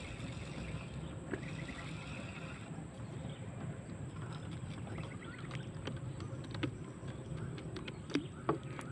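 Steady low rumble of open-air river ambience around a wooden canoe, with a few faint clicks and taps.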